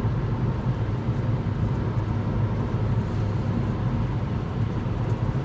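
Steady road and engine noise inside a car moving at highway speed, a constant low rumble with tyre hiss.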